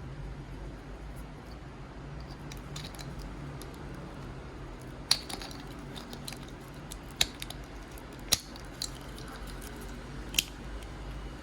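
Four sharp clicks from small objects being handled, spread over the second half, over a steady low hum.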